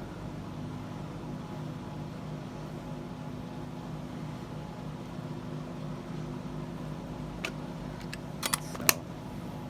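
Whole-house fan running with a steady hum and drone. A few short sharp clicks come near the end.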